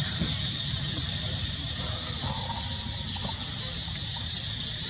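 Steady high-pitched drone of forest insects, with a low rumble underneath.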